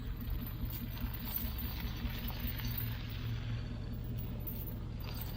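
Truck engine running steadily at idle, a constant low hum.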